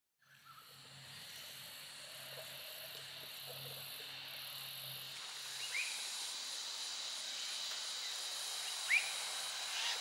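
Outdoor ambience fading in, dominated by a steady, high-pitched insect drone. Two short chirps come through, one about midway and one near the end.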